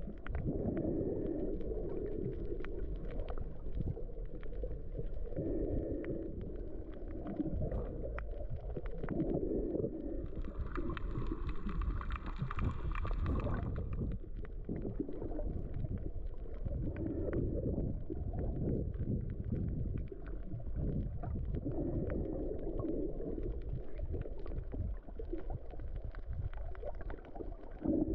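Muffled underwater noise from a submerged camera: a low rumble of moving water that swells every few seconds, with faint crackling throughout. A higher whine with a few steady tones joins for about three seconds around the middle.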